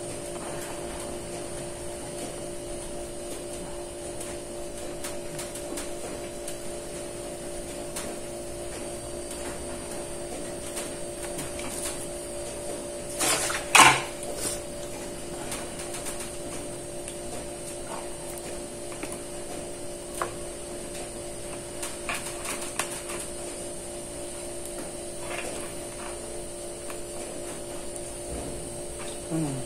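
A steady hum under light clicks and taps of a metal spoon and fingers on plastic bowls and a plate as tempeh slices are dipped in batter and pressed into flour. The loudest is a short clatter about 14 seconds in.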